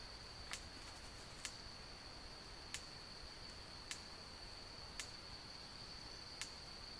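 Rainforest ambience: an insect's steady, high-pitched drone, with sharp single clicks about once every second or so.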